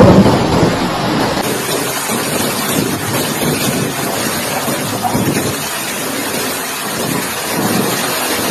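Hailstorm: hail and rain pouring down in a steady, dense roar while strong wind gusts against the microphone. The noise eases slightly about a second in.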